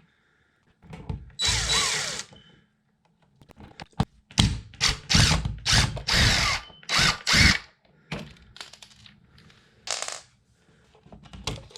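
Cordless drill/driver running in short bursts, on and off several times, as it backs out the mounting screws of an electrical wall outlet.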